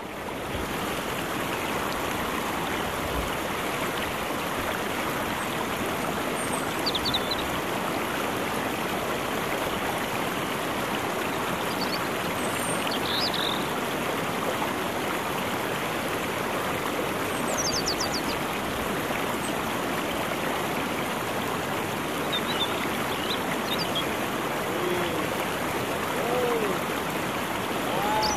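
River water flowing steadily over rocks, an even rushing sound, with a few short high chirps scattered through it.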